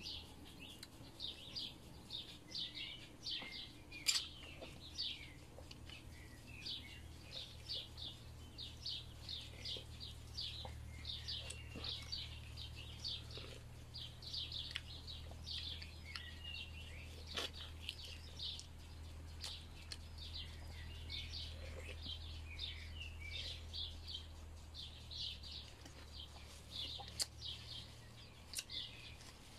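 Small birds chirping continuously, many short high calls in quick succession, over a low steady hum that fades near the end. A few sharp clicks stand out, the loudest about four seconds in and again around seventeen seconds.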